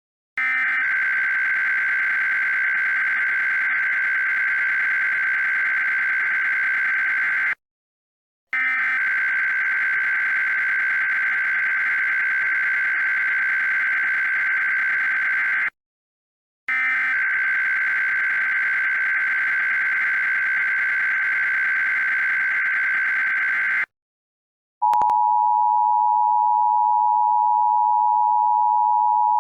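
Emergency Alert System (EAS) alert opening: the SAME digital header, a screechy data tone sent three times in long bursts with short silences between, encoding a Child Abduction Emergency. Near the end the steady two-tone EAS attention signal begins.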